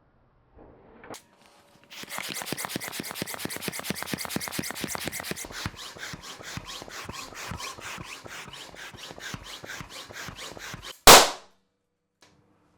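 A balloon being pumped up in quick, even strokes, about five a second, then bursting with one very loud pop near the end.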